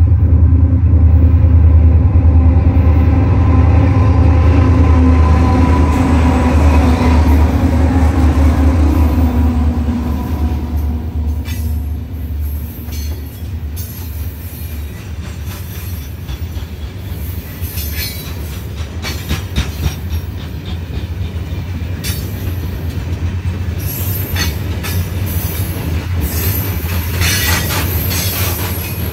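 An EMD diesel-electric freight locomotive passes close by with a loud engine drone whose pitch falls as it goes past, about a third of the way in. A long string of iron-ore hopper cars then rolls by with steady wheel clatter and occasional high wheel squeals.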